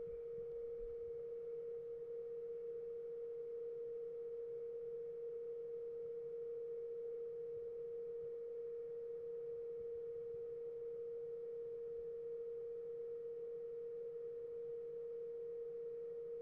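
Steady electronic whine at one unchanging pitch, from the powered welder inverter board and its bench power supply under test.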